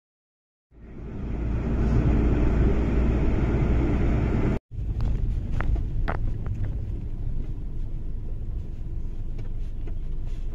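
Steady low rumble of a moving vehicle, heard from on board, with a few sharp clicks in the second half. The sound fades in just under a second in and breaks off for a moment a little under halfway through.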